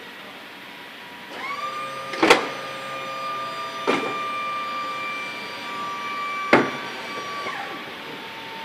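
Falcon 900B engine 2 thrust reverser doors cycling during a ground functional check. A hydraulic pump whine starts about a second in and holds steady. Over it come a heavy clunk a little after two seconds as the doors stow, a lighter clunk about two seconds later, and another heavy clunk as they deploy again. Near the end the whine winds down.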